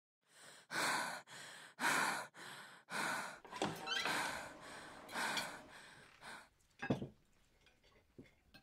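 Heavy panting, quick noisy breaths in and out about twice a second, then a single low thump about seven seconds in.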